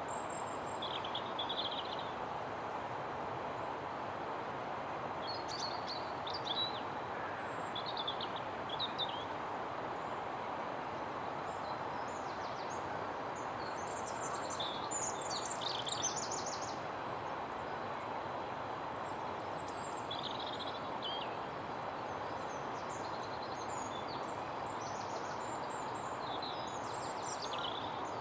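Small birds chirping and singing at intervals over a steady rushing background noise outdoors.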